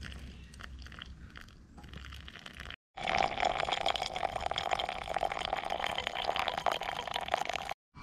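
Hot water poured in a thin stream from a titanium canteen pot into a paper drip-coffee filter, splashing steadily onto the grounds. The pour is faint at first, then louder from about three seconds in, and it breaks off abruptly twice.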